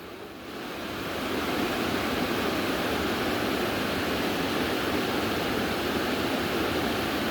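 Rushing river water: a steady hiss of flowing water that swells up over the first second and a half, then holds even.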